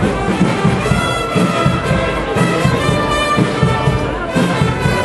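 A brass band playing a tune with a steady beat.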